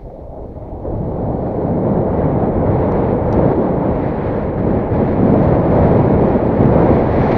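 Wind buffeting the microphone of a camera worn by a skier moving downhill: a loud, low rumble that dips briefly, then builds about a second in and stays strong.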